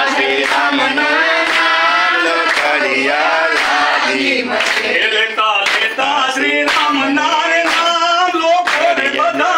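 A group of people singing a song together, with loud steady voices. Hand claps keep an even beat throughout.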